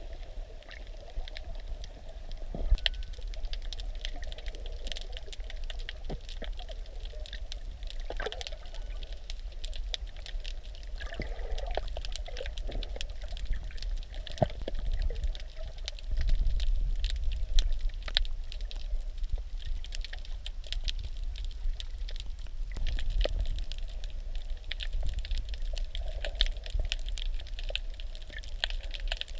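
Underwater sound picked up by a submerged camera: a dense, irregular crackle of tiny clicks over a low, muffled rumble of moving water, with a few short bubbly gurgles.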